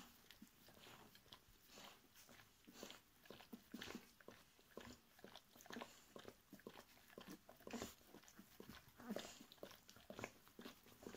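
Faint, irregular wet mouth clicks and smacks from a mother dog and her two-week-old puppies.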